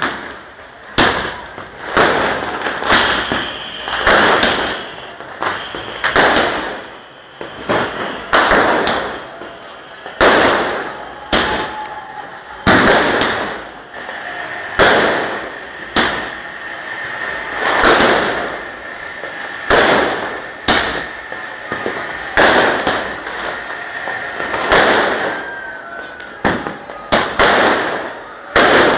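Firecrackers going off one after another: sharp loud bangs about once a second, sometimes two close together, each trailing off in a short echo.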